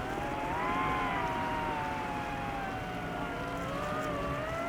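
DJI FPV drone's motors and propellers whining, the pitch sliding down and back up as the throttle is eased off and brought up again.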